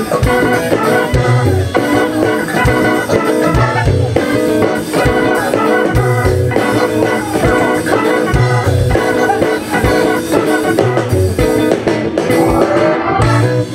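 Music with a steady beat and a repeating bass line.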